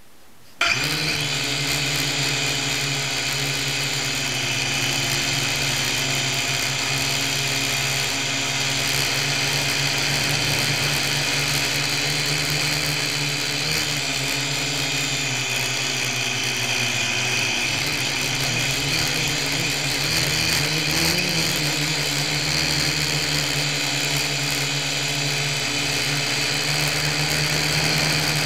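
Syma X1 toy quadcopter's four small coreless electric motors and propellers whining, heard from a camera mounted on the craft. They start abruptly about half a second in and then run steadily, their pitch shifting slightly as the craft manoeuvres in flight.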